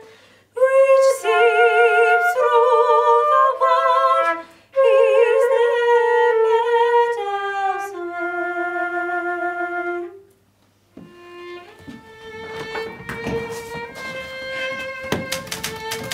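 A solo flute plays a slow melody with wide vibrato, with short breaks between phrases, and fades out about ten seconds in. After that a held note goes on under a rapid clatter of sharp clicks.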